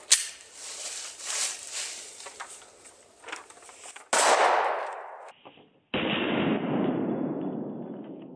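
9mm pistol fired twice: a sharp report about four seconds in and another about two seconds later, the second ringing out with a long fading echo.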